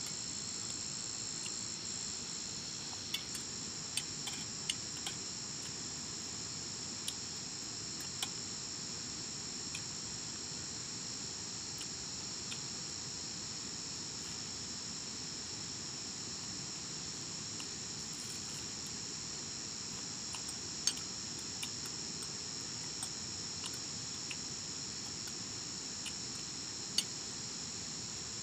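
Steady chorus of crickets, several high shrill tones held without a break. Now and then a sharp light click of a fork or spoon against a metal plate, the loudest two near the end.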